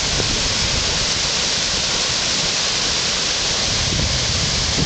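River whitewater rapids rushing steadily, an even, continuous noise of churning water.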